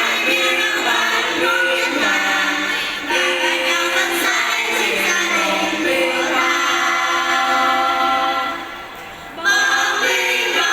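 A choir singing a Vietnamese choral song in several voice parts, with sustained chords changing every second or two. It softens briefly near the end, then the full choir comes back in loudly.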